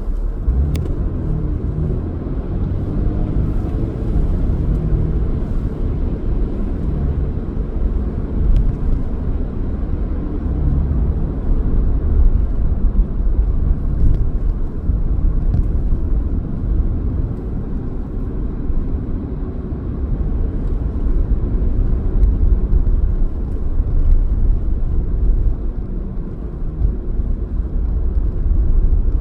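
A car being driven: steady low engine and road rumble, with the engine note wavering slightly up and down.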